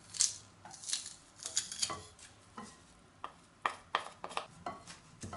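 Short clicks, taps and scrapes of a stainless-steel garlic press squeezing a garlic clove and a wooden spoon scraping the crushed garlic off the press over a glass bowl, a dozen or so irregular strokes.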